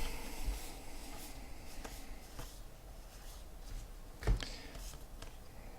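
Faint handling of trading cards, with soft ticks and rustles as the cards are flipped through, and one short thump about four seconds in.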